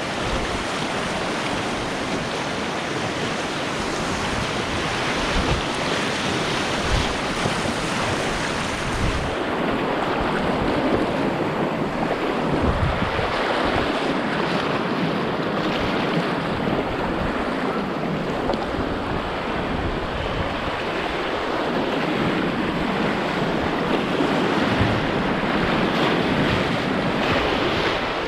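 River water rushing through riffles and small rapids, heard close to the water from a kayak, with wind buffeting the microphone in low thumps.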